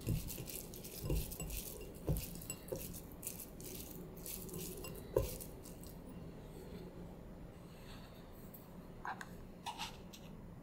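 A hand squeezes and mixes sliced raw pork in a glass bowl, with a dense run of crackly rustling and a few soft knocks against the glass over the first half. Near the end a metal spoon clicks a couple of times as it scoops white powder from a plastic container.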